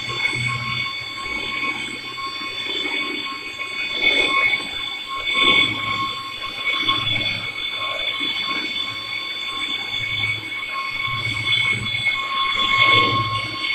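Lathe cutting a BMW brake disc: the tool and spinning disc give a steady high-pitched squeal of several ringing tones, over a low machine hum that swells and fades.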